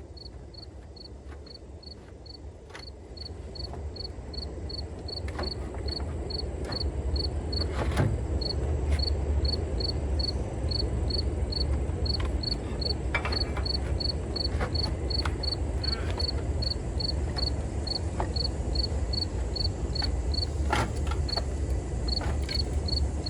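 Insect chirping, a short high chirp about three times a second, steady and unbroken throughout. Under it runs a low rumble that grows louder a few seconds in, with scattered clicks and knocks as a part is worked loose from the car's cooling system.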